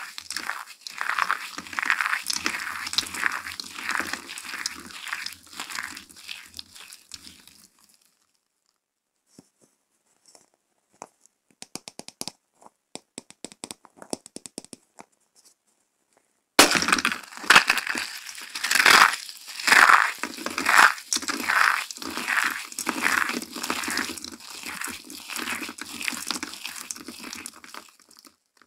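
Dry soap shavings and glitter being crushed and crumbled in the hands, a dense crunching and crinkling. In a quieter middle stretch there are only sparse, light clicks while a soap ball is handled, and then the crunching of crushed soap flakes starts again suddenly.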